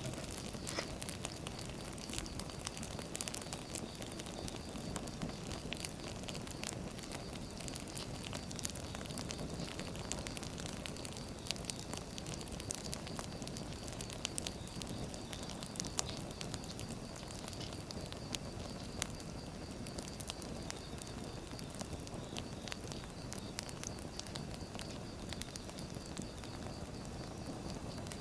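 Wood fire burning, with a steady hiss and many sharp, irregular crackles and pops of firewood.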